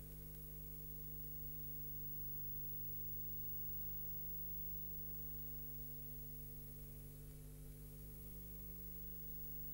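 Steady electrical hum, a stack of unchanging low tones with hiss above it, with no other sound.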